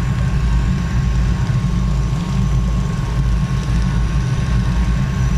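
Steady low machine hum with a thin, high tone held on one pitch above it, unchanging throughout.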